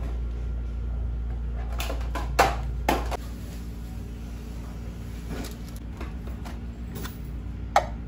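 Kitchen handling sounds: a few clicks and knocks as items are moved in a cupboard and cups, a tea bag and a canister lid are handled on a tiled counter, with a sharp knock about two and a half seconds in and another near the end. A steady low hum underlies the first three seconds, then drops away.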